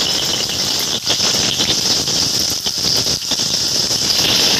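Green chillies, garlic and cumin seeds sizzling in hot oil in a frying pan: a steady hiss with a few small crackles and pops.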